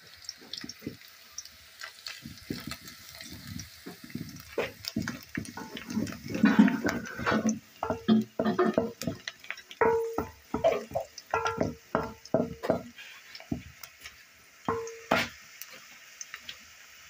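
Wooden spoon stirring frying onions in a metal cooking pot: irregular scrapes and knocks against the pot, some ringing briefly. They come thickest from about five seconds in and thin out near the end.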